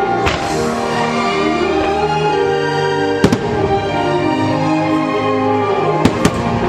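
Orchestral fireworks-show music playing loudly, with sharp firework bangs cutting through it: one just after the start, one about three seconds in, and two in quick succession near the end.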